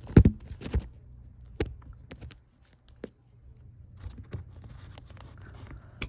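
Plastic wiring-harness connectors being handled and pushed together: a few scattered knocks and clicks over a low steady hum, the loudest about a quarter second in, and a sharp click near the end as the connector latches home.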